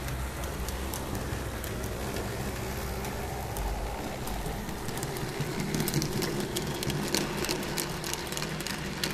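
TT-scale model railbus running toward the camera: a steady whirr of the small motor and wheels on the rails, with sharp clicks from the wheels over the track that come thicker and louder from about six seconds in as it draws near.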